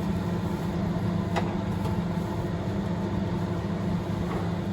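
Steady low droning hum of a running appliance or fan, with a faint short sound about a second and a half in.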